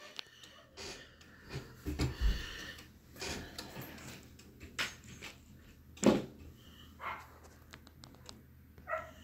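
Quiet handling noises: soft rustling with scattered light clicks and a few knocks, the loudest knock about six seconds in.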